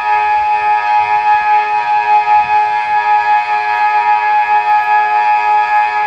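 Delta electronic civil-defence siren sounding a loud, steady multi-tone chord through its stacked horn speakers, holding one pitch without rising or falling.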